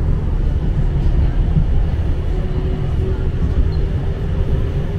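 Tram running along its track, heard from inside the car: a steady low rumble of the wheels on the rails and the running gear.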